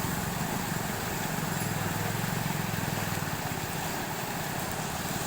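Steady hiss of heavy rain, with a motor vehicle's engine running in the background. The engine's low rumble fades after about three seconds.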